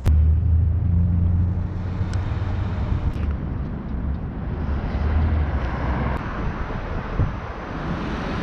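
City street traffic noise: a steady low rumble that eases after about five seconds, giving way to a broader rushing sound.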